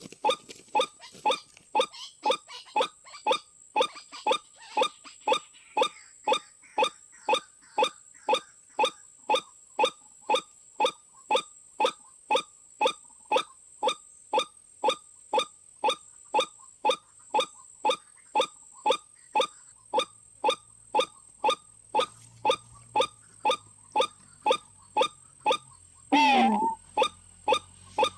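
White-breasted waterhen (ruak-ruak) lure call: short pitched notes repeated steadily at about two a second. About 26 seconds in, one louder call glides down in pitch.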